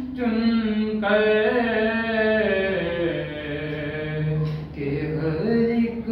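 A young man's solo voice singing an unaccompanied devotional recitation, in long held notes with ornamented, wavering pitch and a short breath between phrases.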